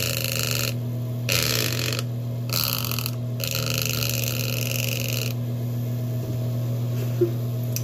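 Small battery-powered O2 Cool clip fan running with a steady hum, its soft foam blades buzzing and flapping in raspy bursts against lips and tongue pressed into the fan head. The buzzing stops about five seconds in, leaving the steady hum.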